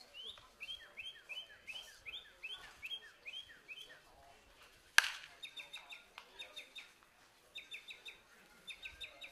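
Baseball bat striking a pitched ball once, a sharp crack about halfway through and the loudest sound. Birds chirp throughout, first in sliding chirps, then in quick runs of short, repeated chirps.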